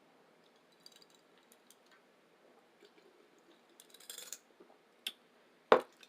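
Close-miked eating sounds: faint scattered mouth clicks and smacks, a brief rustle about four seconds in, and one short, sharp, loud click near the end.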